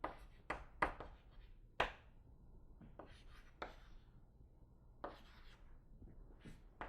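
Writing on a classroom board: a run of sharp taps in the first two seconds, then a few longer scratching strokes.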